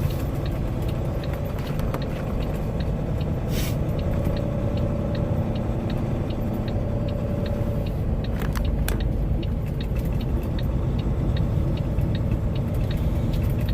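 Heavy diesel truck engine idling steadily: a low rumble with a fast, even ticking over it. Two short bursts of hiss come about three and a half seconds in and again around nine seconds.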